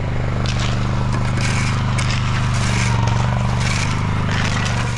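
Small gas engine of a power buggy running steadily, with repeated scraping of gravel over it.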